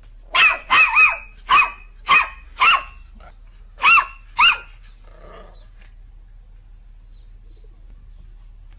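Black-and-tan puppy barking: eight short, high-pitched barks, six in quick succession and then a pair about a second later, all within the first four and a half seconds.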